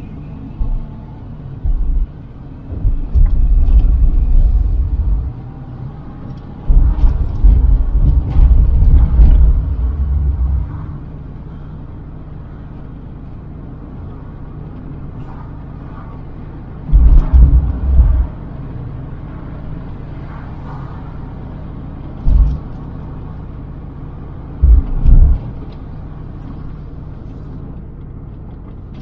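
A car being driven: a steady low drone of road and engine noise, broken several times by louder low rumbles lasting from about a second to a few seconds.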